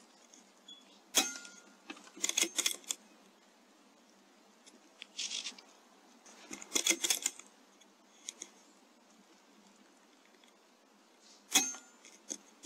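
Airmaks Krait L .22 air rifle firing, a single sharp crack about a second in, followed by several clusters of quick metallic clicks and rattles, and another sharp crack near the end.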